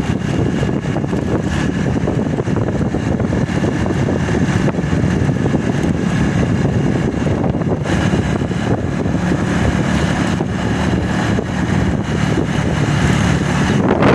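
Yamaha motorcycle engine running steadily.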